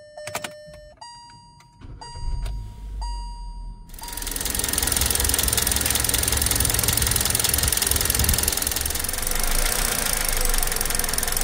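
A few short electronic beeps and clicks, then from about four seconds in a Kia Rio 1.4 Kappa G4LC four-cylinder engine running with a steady, rapid knock. It is the knock that appears once the engine is warm and is put down to worn hydraulic valve lifters.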